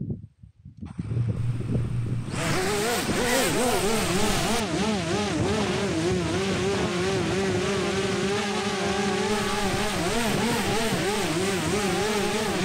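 Motors and propellers of a DJI Mavic Mini converted to an FPV racing quad (stock motors, folding blades held rigid by prop locks) spooling up about two seconds in. After that comes a steady multi-rotor buzz whose pitch keeps wobbling up and down as the quad lifts off and holds a hover.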